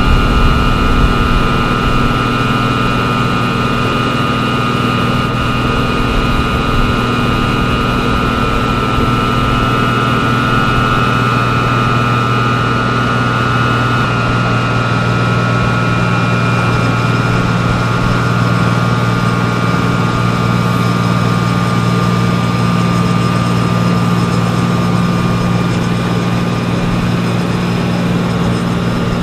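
Heavy diesel construction machinery running steadily under constant load, a continuous engine drone with a high whine over it; the pitch shifts slightly about halfway through.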